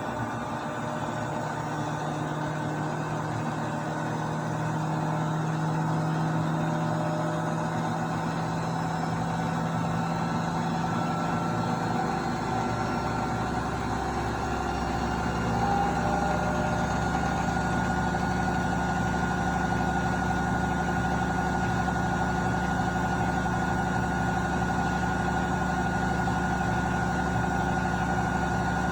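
Beko washing machine in its spin cycle: the drum motor runs with a steady whine. A deep rumble joins about twelve seconds in and the sound grows a little louder a few seconds later as the spin builds.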